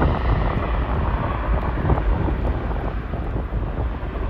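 Wind buffeting the microphone, over the steady distant rumble of a Southwest Boeing 737's jet engines as it rolls down the runway.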